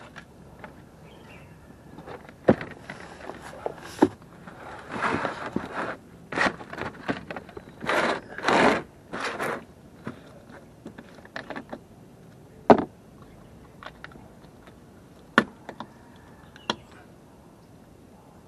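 Hands handling an oil filter box and a plastic motor-oil jug: scattered sharp knocks and clicks, with short bursts of rustling and scraping in the middle seconds.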